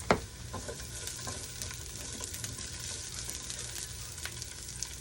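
Ginger and onion sizzling in hot oil in a pan, with a sharp knock of a utensil against the pan at the start and a few lighter clicks of stirring. After that the sizzle runs on as a steady hiss.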